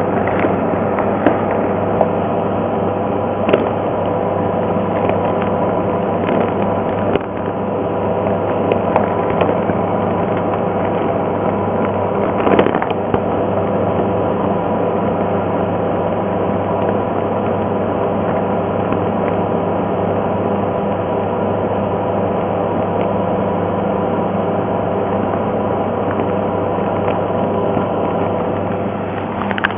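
Steady machine hum with several tones, from the isolator's ventilation fan, with a few light clicks and knocks as the glove-port rings and plastic sleeve are handled, the loudest about halfway through.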